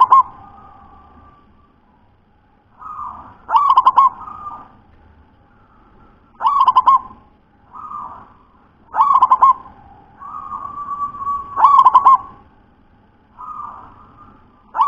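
Zebra dove (perkutut) singing in repeated phrases, about five in all. Each phrase has softer lead-in coos and then a loud burst of rapid staccato notes, in the thick voice that keepers prize.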